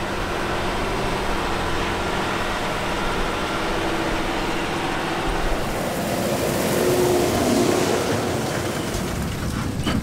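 Large tractor engines running steadily under load in the field: first a Case IH Quadtrac 620 tracked tractor, then, about halfway through, a Fendt tractor pulling a square baler, when a steady hiss joins the engine sound.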